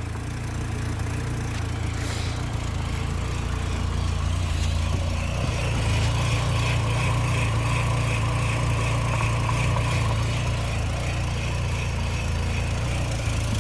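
1986 Volkswagen Cabriolet's four-cylinder petrol engine idling steadily, just started after sitting unused for over a month. It grows a little louder over the first few seconds, and a higher whine joins the low hum about five seconds in.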